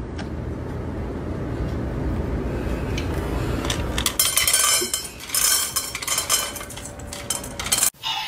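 Automatic pet feeder dropping dry kibble into a stainless steel bowl: a rapid scatter of small clinks and rattles against the metal, starting about halfway through after a low steady rumble.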